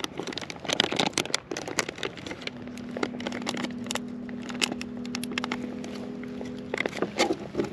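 Crinkling and crackling of a plastic Berkley Gulp! soft-bait bag being torn open and handled. A steady low hum with a few even tones starts a couple of seconds in and stops near the end.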